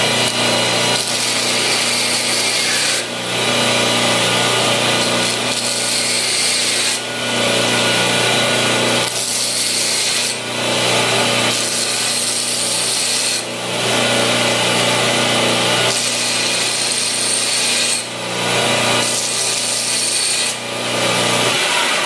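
1x30 belt sander running steadily while a dull drill bit is sharpened against the belt. The grinding comes in passes of a few seconds each, easing briefly between them as the bit is lifted and repositioned.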